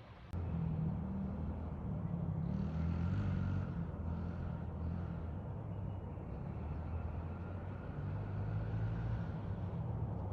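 Engine running steadily with a low hum, starting abruptly just after the start, with some hissing noise over it a few seconds in.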